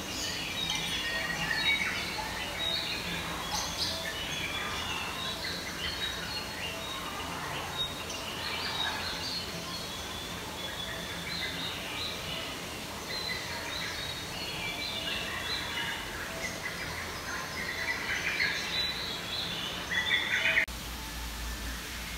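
Many small birds chirping and twittering over a steady background noise. The chirping cuts off suddenly near the end, leaving a steady low hum and hiss.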